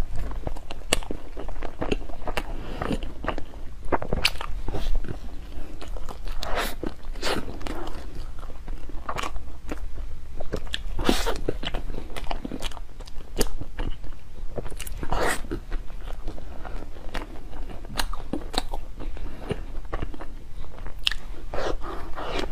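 Close-miked eating of a soft chilled bun (ice bread): bites, chewing and wet mouth smacks, with many short sharp clicks.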